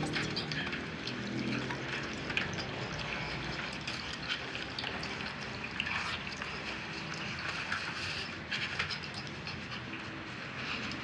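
Wet mouth sounds of gummy candies being picked up with the lips, sucked and chewed: many small smacks and clicks.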